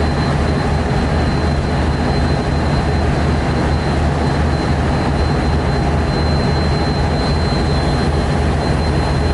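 DF11G diesel locomotive's engine idling at the platform: a heavy, steady, loud diesel drone with a thin high whine held over it.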